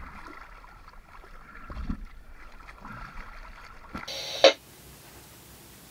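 Water sloshing faintly around a sailboat's hull, with a short, sharper burst of noise about four seconds in, followed by a faint hiss.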